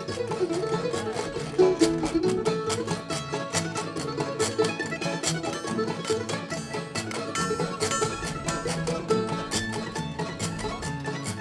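Bluegrass-style acoustic string music, with picked banjo and guitar notes.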